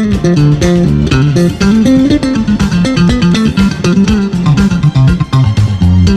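Background music: a plucked guitar melody over a bass guitar line.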